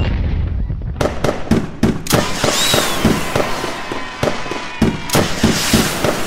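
Cartoon fireworks sound effect: a low rumble, then a rapid, irregular string of sharp pops and bangs from about a second in, with a high falling whistle partway through.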